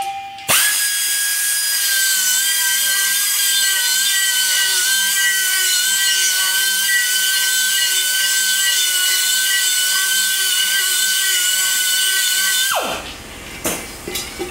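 Pneumatic air tool starting about half a second in and running at full speed with a steady high whine while it spins an alloy wheel lying on the floor. Near the end the air is cut off and the whine drops away quickly.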